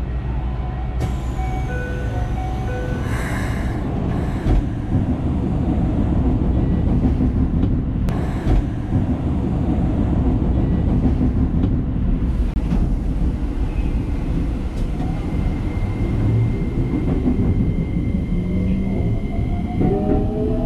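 Electric commuter train running on rails, heard from the driver's cab: a steady rumble of wheels and running gear. Near the end the traction motors' whine rises in pitch as the train picks up speed.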